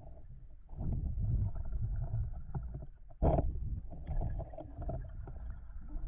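Muffled underwater rumble of a diver swimming with a camera-mounted speargun, water moving past the housing, with one sudden louder thump about three seconds in.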